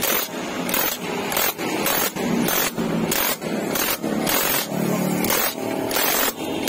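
Impact wrench hammering on a magneto puller's centre bolt in short bursts, over and over, roughly two a second: it is forcing a stuck magneto rotor off the engine's crankshaft.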